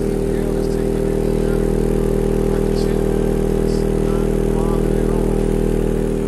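Skar Audio EVL-12 12-inch subwoofer playing a 40 Hz test tone in free air, with no enclosure, on about 800 watts: a loud, steady low hum with many strong overtones, held without change. It is taking the power cleanly.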